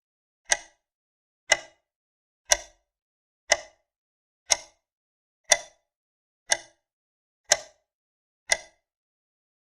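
Nine sharp ticks at an even one per second, each dying away quickly, with silence between them, like a countdown.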